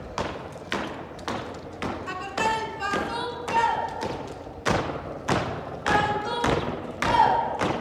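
A marching squad stamping its boots on concrete in unison, a sharp, echoing step about every 0.6 seconds.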